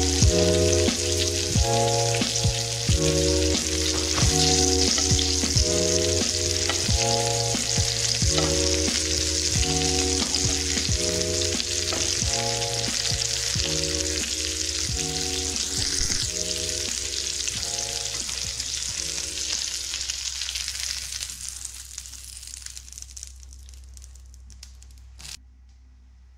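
Tuna steak frying in butter in a nonstick pan: a loud, steady sizzle that dies away a few seconds before the end. Light background music of short plucked notes plays under it for most of the time.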